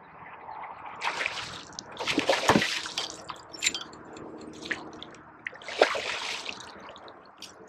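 Water splashing in several surges, the loudest about two seconds in, as a hooked redfish thrashes at the surface while it is brought to the boat.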